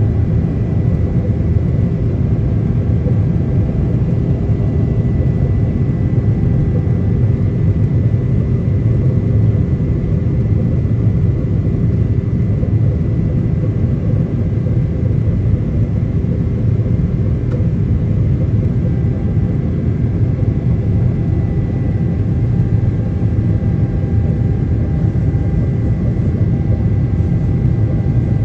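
Boeing 777-300ER's GE90-115B turbofan engines in the climb, heard from inside the cabin over the wing. There is a steady low roar with a thin, steady whine above it.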